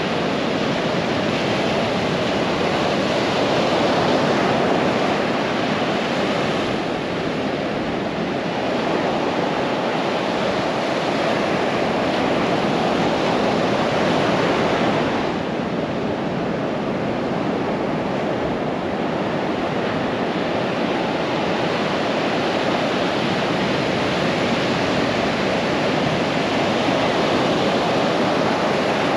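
Pacific surf breaking and washing up a sandy beach: a steady rush of waves that swells and eases, dipping slightly about seven and again about fifteen seconds in.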